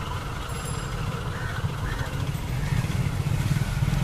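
A motor vehicle engine running nearby amid street noise, growing louder near the end.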